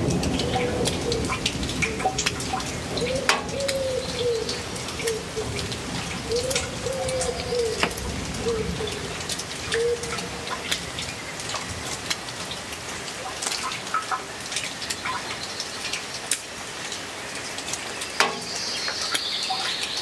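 Steady rain falling, with many close drops ticking. A pigeon coos a series of low phrases through the first half, and a small bird chirps briefly near the end.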